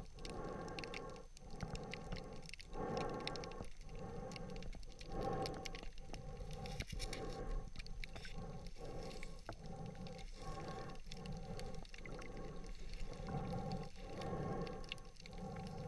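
Muffled underwater noise heard through a waterproof camera housing. It swells and fades in pulses about once a second as the diver swims, with scattered faint clicks.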